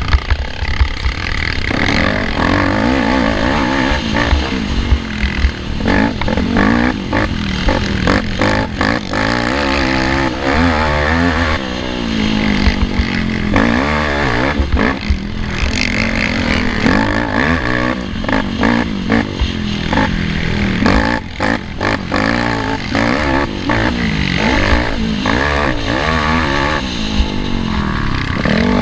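Small 50cc race ATV engine revving up and down repeatedly as it is ridden hard over a rough dirt track, with frequent rattles and knocks from the bumps.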